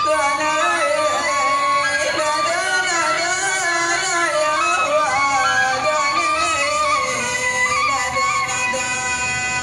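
Hadrami dān singing: a man's voice in long, wavering ornamented lines over a steady held tone. The ornamented voice line ends about seven seconds in, leaving the held tone.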